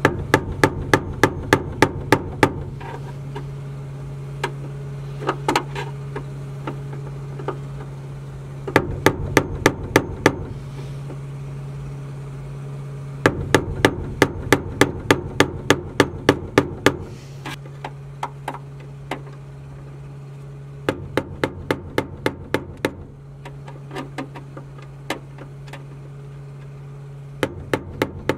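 Hammer blows on the steel locking ring of a fuel pump, tapping it clockwise to lock the pump into the tank. The blows come in several quick runs of about four a second, with pauses between them.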